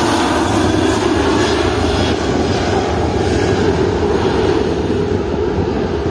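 Aircraft engines running, a loud, steady noise with no breaks.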